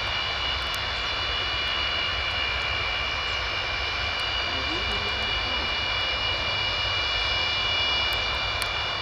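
Aircraft engines running steadily: a broad rushing noise with a high whine made of several steady tones.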